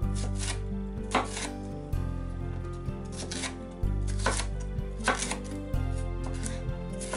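Kitchen knife slicing through bell pepper and striking a wooden cutting board, about seven irregular chops, some in quick pairs. Soft background music plays underneath.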